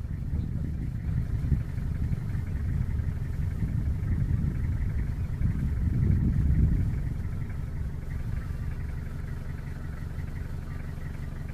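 Engine running with a low rumble that swells about six seconds in, then settles into a steadier drone.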